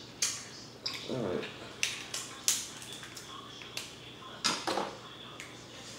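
King crab leg shells being cracked and pulled apart by hand: a string of sharp cracks and snaps, about nine in all, at uneven intervals. A short voice sound comes about a second in.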